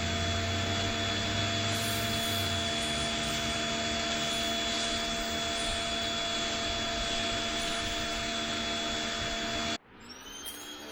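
Pressure washer running steadily, a motor drone with a hiss of spray over it. It cuts off abruptly near the end, then a sound comes back in with a rising whine.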